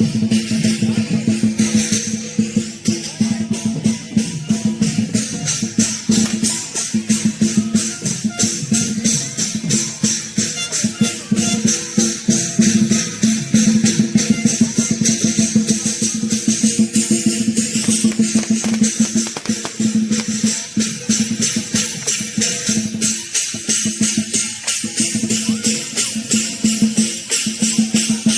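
Lion dance percussion: drum with clashing cymbals playing a fast, continuous beat.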